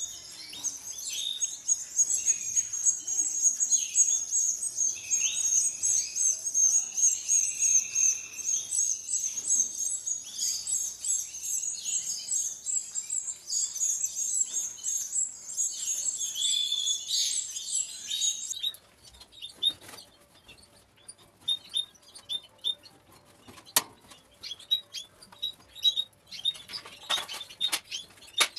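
Canary nestlings about 20 days old begging for food with rapid, high-pitched chirping. The chirping cuts off about two-thirds of the way through, leaving scattered softer chirps and one sharp click.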